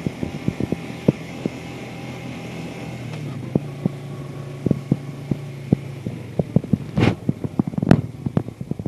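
ATV engine running while riding, its note stepping up a little about three seconds in. Frequent short knocks and rattles run through it, with two louder thumps near the end.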